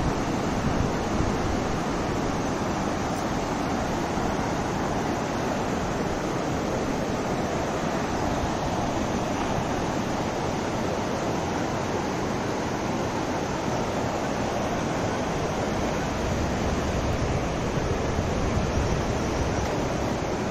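Mountain river rushing over boulders and rapids: a steady, unbroken roar of water.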